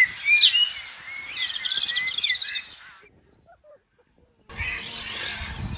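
Birds calling, with whistled upslurred notes and a fast chattering trill. The calls cut off about three seconds in, and after a short silence a different, fuller background sound starts.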